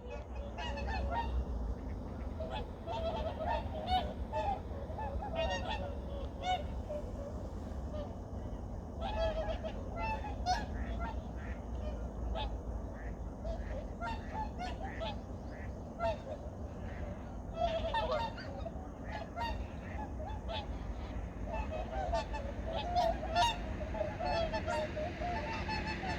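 A flock of wild geese honking, many overlapping calls in a continuous chorus. A low steady rumble runs underneath.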